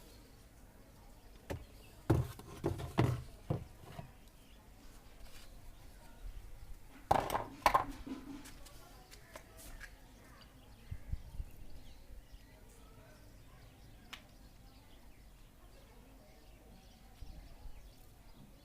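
Scattered clinks and knocks of washing-machine parts and tools being handled during disassembly, in a few short clusters, the loudest about two and seven seconds in.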